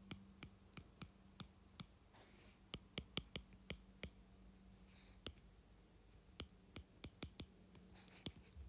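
Faint, irregular clicks of a stylus tip tapping on a tablet's glass screen as figures and words are handwritten, over a low steady hum.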